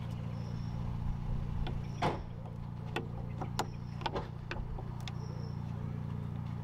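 A few sharp plastic clicks and knocks, the loudest about two seconds in, as a Ford Focus headlight unit is worked loose from its mountings by hand, over a steady low engine hum.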